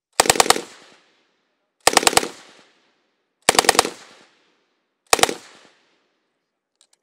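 A Second World War Bren light machine gun, restored from a deactivated museum piece to firing condition, firing four short bursts of about three to five shots each, roughly a second and a half apart. Each burst trails off in an echo.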